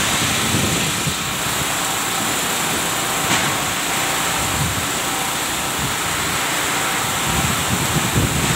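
Heavy typhoon rain pouring steadily on pavement and roofs, with strong wind. Low gusts of wind buffet the microphone several times, most strongly near the end.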